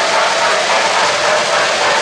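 O-gauge three-rail model trains running on the layout's track: a steady mechanical noise of wheels and motors.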